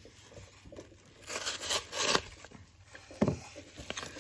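Yellow padded paper mailer being torn open and crinkled by hand: rough rustling tears in the first half, then a sharp click about three seconds in.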